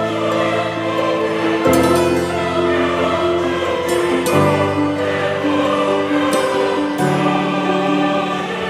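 Background music of slow sustained chords sung by a choir, changing chord every two to three seconds.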